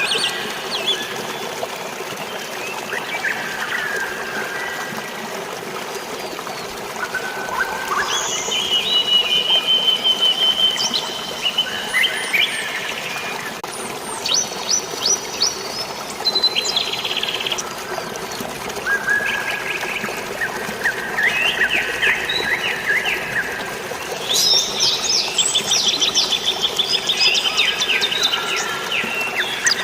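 Several birds chirping and singing in fast trills, with bursts of rapid repeated notes, over a steady rush of flowing water.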